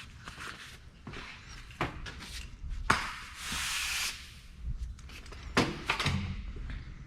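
Handling noises while working on a car: rubbing and scattered knocks, with a rushing hiss lasting about a second about three seconds in and a sharp knock about two seconds later.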